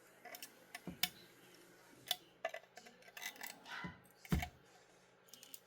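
Small irregular plastic clicks and snaps as print supports are picked and broken off a 3D-printed plastic model part by hand, with a louder knock about four seconds in.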